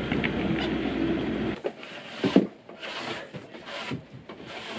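A truck engine runs with a steady low rumble. About a second and a half in this gives way to timber boards scraping and rubbing on each other as a board is slid along the top of a wall, a run of uneven strokes with a sharp wooden knock a little after two seconds.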